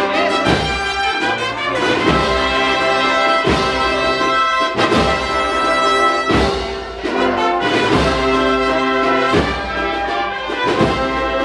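Spanish procession brass-and-percussion band (agrupación musical) playing a march: a loud brass melody over a steady drum-and-cymbal beat, with a strong stroke about every second and a half.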